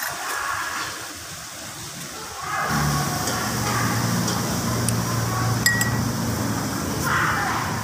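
Background ambience with faint voices, then a steady low hum that sets in about three seconds in, with one sharp click near the end.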